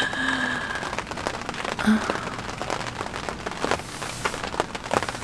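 Rain falling on and around a cotton canvas bell tent, heard from inside: a steady hiss with many separate drop ticks.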